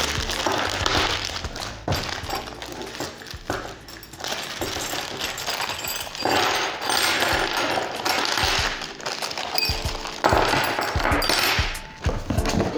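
Plastic packaging bags rustling and crinkling as they are handled and pulled off the parts, with short knocks and clatter of things set down on the table.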